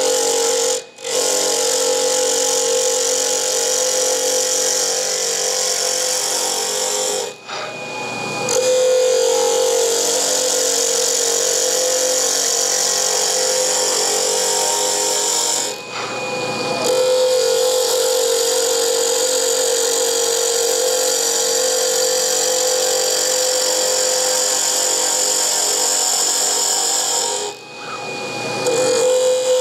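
Wood lathe spinning a hard stabilized curly mango pen blank while a hand-held turning tool cuts it: a steady cutting hiss over a hum. The cut breaks off briefly four times.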